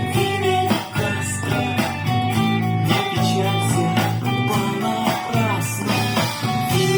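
Guitar-led band music, an instrumental passage with a steady beat and no vocals, played through a pair of 10МАС-1М speakers.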